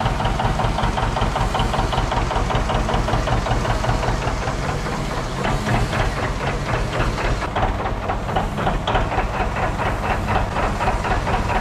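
Tractor engine running steadily, with a fast, even firing pulse and a low rumble.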